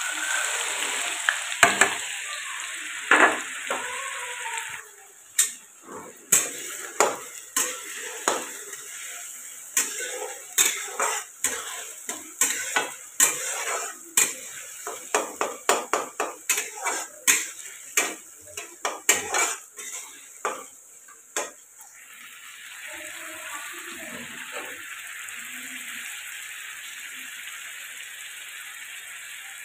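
Chopped onions tipped into hot oil in a steel kadhai, frying with a steady sizzle. From about five seconds in, a steel spatula stirs them with many sharp clacks and scrapes against the pan, and near the end the sizzle goes on steadily alone. The onions are being fried for an onion masala.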